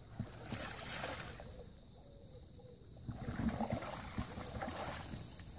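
Water splashing and streaming off a mesh carp sling as it is lifted out of the shallows, with the sloshing of a person wading. It comes in two spells, about half a second in and again about three seconds in.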